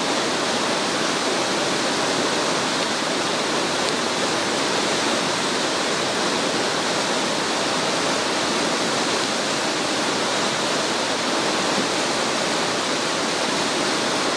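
Steady rushing of a river in flood, its fast, muddy high water churning with standing waves.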